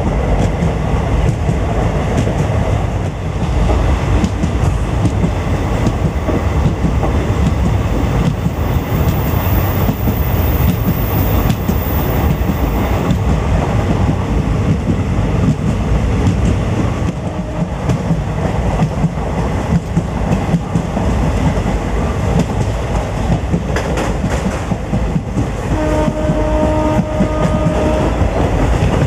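Train running on the track, a steady heavy noise of wheels and coaches with a clickety-clack. Near the end, a horn sounds as one steady note, held for about two and a half seconds.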